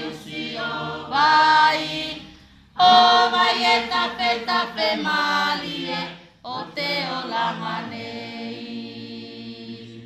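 Choir singing a Tuvaluan church hymn, several voices in harmony on held notes. There is a short pause about two and a half seconds in, then a louder entry. Near the end a long chord is held and slowly fades.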